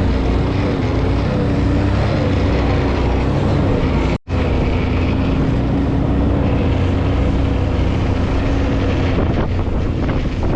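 A vehicle engine running steadily while under way, with wind rushing over the microphone. The sound drops out for a split second about four seconds in.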